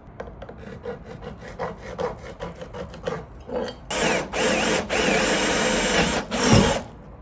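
Scraping and handling on a wooden board, then about four seconds in a cordless power tool runs into the plywood for roughly three seconds. Its motor pitch wavers up and down under load before it stops abruptly.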